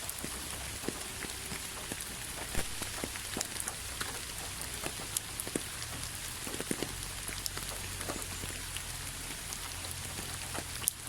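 Rain falling steadily: an even hiss with many scattered drop ticks.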